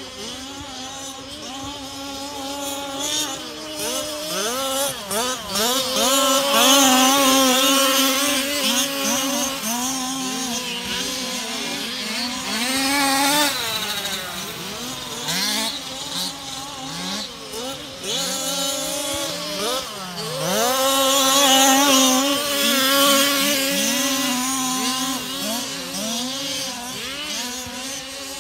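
Several 1/5-scale petrol RC cars' small two-stroke engines, revving up and easing off again and again as they race around, their pitches overlapping. They are loudest about a quarter of the way in and again about three quarters of the way in.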